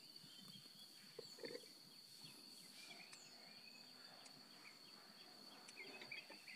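Faint outdoor ambience: an insect holds one steady high-pitched note throughout, with a few short chirps scattered over it.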